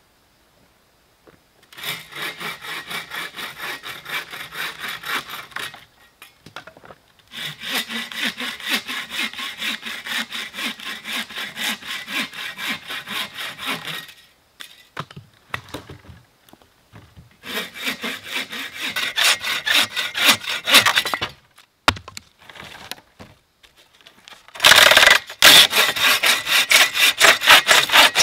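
Bow saw cutting through a dead hardwood branch: four bouts of quick, even back-and-forth strokes with short pauses between them, the last bout the loudest.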